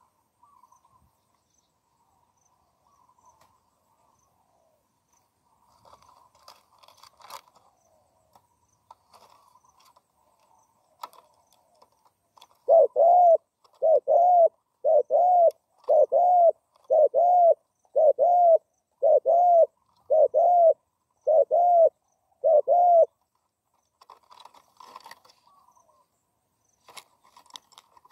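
Spotted dove cooing: a run of about ten short, arched coos, evenly spaced about one a second, starting about halfway in and stopping a few seconds before the end. Faint small chirps and clicks come before them.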